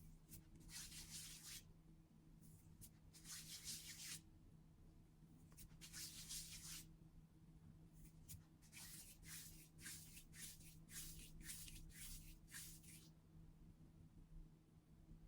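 Faint, soft hissing swishes that come and go, half a second to a second each and in a quick string in the second half, over a low steady hum.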